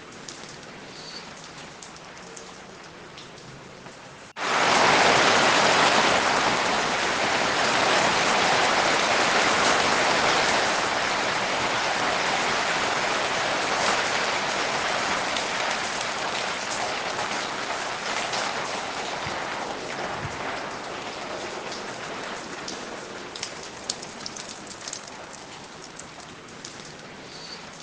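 Rain falling, light at first; about four seconds in it abruptly turns into a much louder, heavy downpour, which then slowly eases off over the next twenty seconds.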